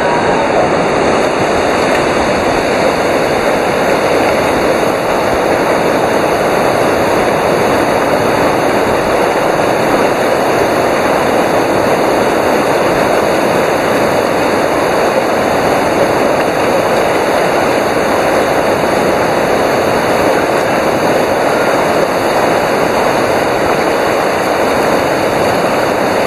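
Steady, loud rush of river whitewater.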